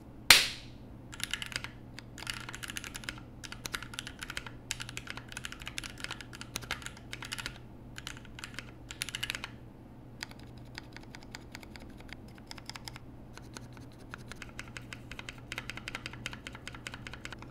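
One sharp hand clap, then typing on a mechanical keyboard whose stabilizers have been lubed, Holee-modded and padded with Band-Aid under the wires to stop ticking. Irregular runs of keystrokes, with quicker, lighter strokes from about ten seconds in.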